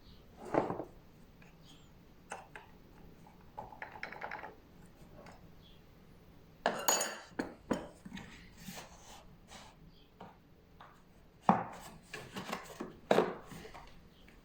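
Hard objects being handled: irregular knocks, clicks and rattles, with the loudest knocks a little after the start, near the middle and twice near the end. No motor is running.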